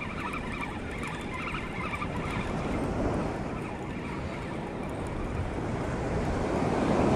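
Wind rumbling on the microphone over surf washing onto the beach, growing louder near the end.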